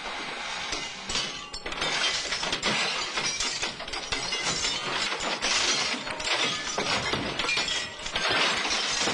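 Trolleybus window glass being smashed, with several loud crashes and the tinkling of falling glass, as the bus is broken up for scrap.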